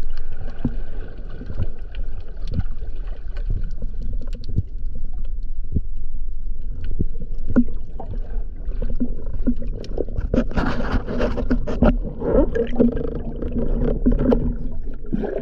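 Underwater sound of a breath-hold dive: a steady low water rumble dotted with many sharp clicks and ticks. About ten seconds in it swells into a louder rush of water and bubbles as the diver moves up toward the surface.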